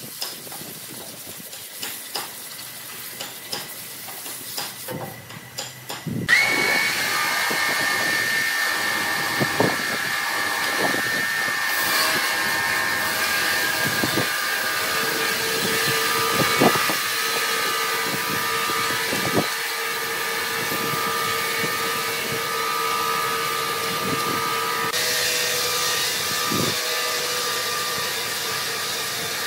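Large band sawmill sawing through a giant log: after a few seconds of quieter clicking, the saw comes in loud about six seconds in with a steady high whine and hiss, with occasional knocks.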